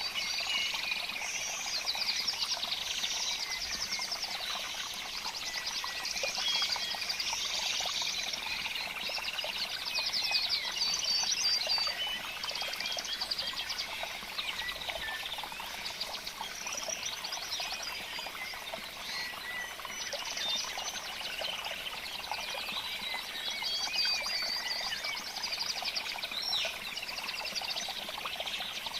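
A dense chorus of small birds chirping and trilling without pause, many high, quick notes overlapping, swelling a little now and then.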